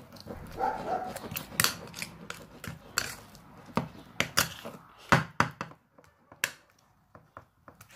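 Irregular sharp clicks and knocks with sticky handling noise, from homemade glue-and-detergent slime being worked and scraped on a plate.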